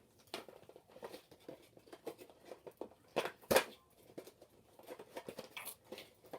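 Action figure packaging being handled and opened: scattered small clicks and rustles of cardboard and plastic, with one louder crackle about three seconds in.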